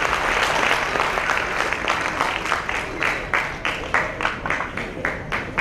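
Audience applauding. The applause thins from about two seconds in into distinct claps at about three a second.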